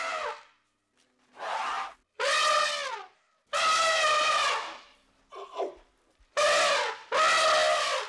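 Asian elephant trumpeting: a series of about six or seven short, brassy calls, each under about a second long, with brief pauses between them.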